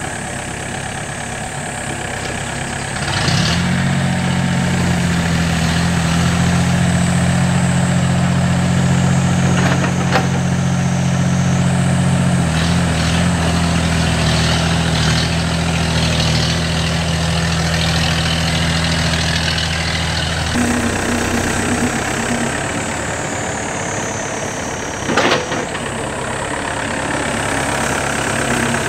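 Yanmar B7 backhoe's diesel engine running while it works, stepping up to a louder, steady higher speed about three seconds in and dropping back to a lower speed about twenty seconds in. A single sharp knock a few seconds before the end.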